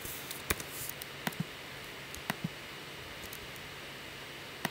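Computer mouse clicks and keystrokes: a handful of sharp, irregularly spaced clicks over a faint steady hiss, made while a value is typed into a software patch.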